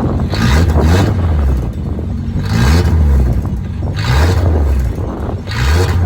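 A 1983 Toyota Celica GTS's 22R-E four-cylinder engine blipped four times over its idle, each rev rising and falling back, through an exhaust with half of it missing, which makes it sound like a truck.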